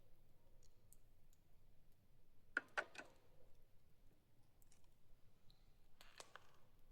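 Near silence broken by sharp clicks: three in quick succession about two and a half seconds in, and two more near the end.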